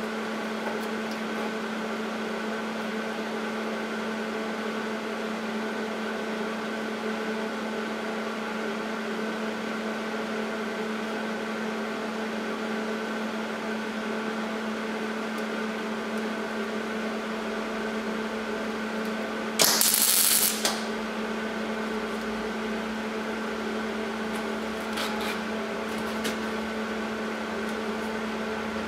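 MIG welder tack-welding a sheet-steel patch panel onto a rusted truck fender: a steady electrical hum throughout, and about 20 seconds in one loud burst of arc sizzle lasting about a second, followed a few seconds later by a few faint crackles.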